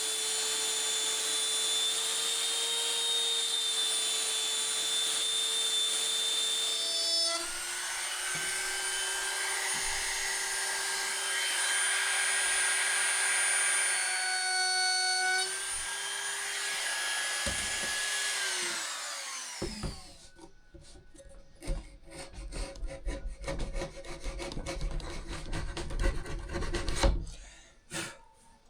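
An electric power tool working wood, running steadily for about twenty seconds with its motor pitch dropping slightly twice under load, then winding down. After it stops, irregular knocks and clatter of wood being handled.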